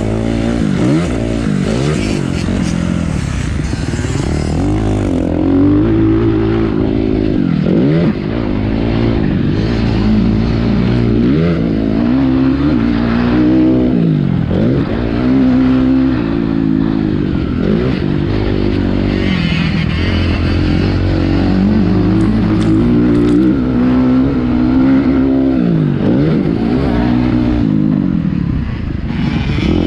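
Motocross dirt bike engine revving hard and easing off over and over, its pitch climbing and dropping every second or two as the rider gets on and off the throttle.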